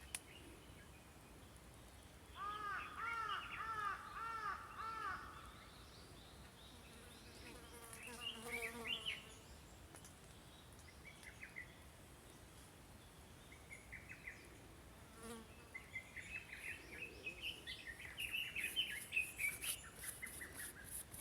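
Wild birds calling: a quick run of about seven repeated arching call notes, then scattered short chirps, and a busier stretch of rapid chirping near the end.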